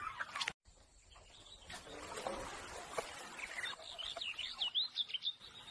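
Faint outdoor ambience, broken by a short silent gap near the start; in the second half a small bird chirps a quick run of short notes.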